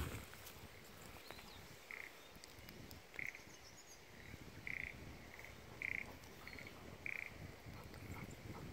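Frogs in the rice paddies calling: short, high croaks about a second apart, some louder and some fainter, as from several frogs.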